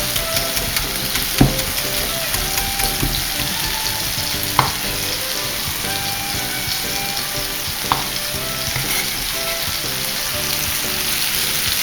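Garlic and chopped tomatoes sizzling steadily in olive oil in a pan, with three sharp knocks a few seconds apart.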